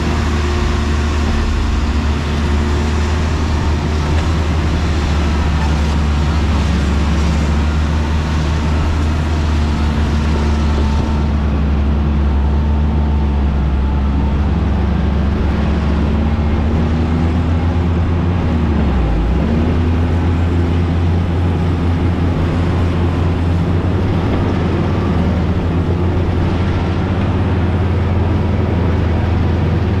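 Motor grader's diesel engine running steadily at working speed, with a brief dip in engine speed and recovery about two-thirds of the way through.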